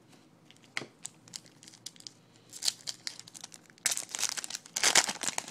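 A foil trading-card pack being torn open and crinkled: a few light clicks of cards being handled first, then a short rustle, and near the end about a second and a half of dense crinkling as the foil wrapper tears.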